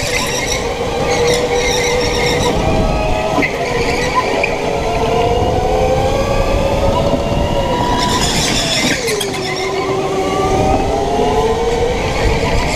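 Electric go-kart running hard, its motor whine rising and falling in pitch as it speeds up and slows through the corners. Short bursts of tyre squeal come through the turns.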